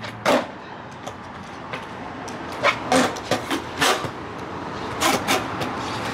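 Skateboard wheels rolling on a concrete sidewalk with a steady rumble, broken by sharp clacks of the board popping and landing during flatground tricks: one just in, a quick run of about four in the middle, and two more near the end.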